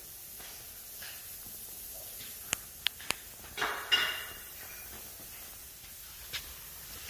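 Quiet room tone broken by three sharp clicks a little past two seconds in, a short clatter with a faint metallic ring about a second later, and one more click near the end.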